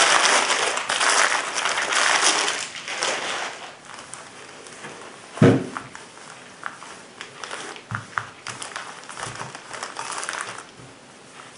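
Bubble wrap being unrolled and pulled off a packaged rifle scope, crinkling and crackling for the first few seconds. A single thump comes about halfway through, followed later by lighter crinkling of a plastic sleeve being handled.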